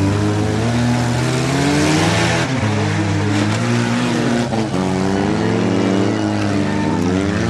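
Several demolition derby cars' engines revving and labouring on a dirt track, their pitches rising and falling against each other as the cars accelerate, ram and push, with a brief rush of noise about two seconds in.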